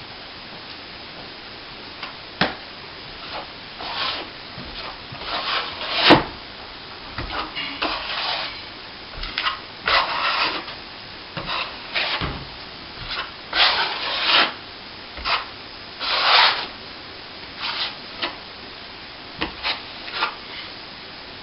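Steel plastering trowel scraping back and smoothing fresh plaster on a plasterboard patch, in short irregular strokes, with a sharp knock about six seconds in.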